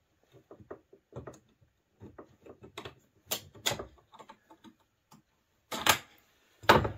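Metal clicks and knocks as a spreader's mounting clamps and bolts are worked into place on an ATV's metal rear rack, ending with two louder sharp knocks.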